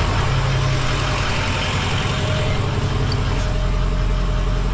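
2003 Ford F350's 6.0-litre Power Stroke V8 turbo-diesel idling steadily. The newly replaced power steering pump gives no audible whine.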